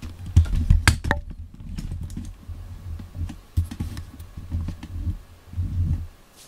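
Camera handling noise: irregular low rumbling thumps with a few sharp clicks as the handheld camera is moved. The noise stops about six seconds in.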